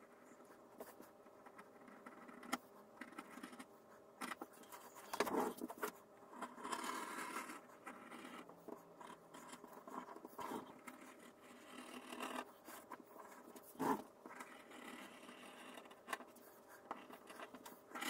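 Knife blade being drawn through leather, cutting a strap along a scored line: faint, repeated scraping strokes with small clicks and ticks between them.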